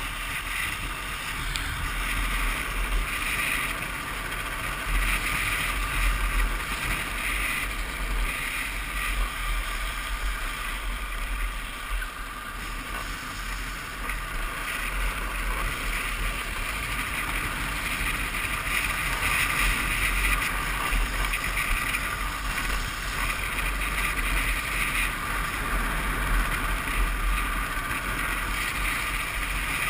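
Wind buffeting the microphone during a fast downhill drift trike run, over the steady hiss of hard plastic trike wheels rolling and sliding on asphalt, the hiss swelling in patches.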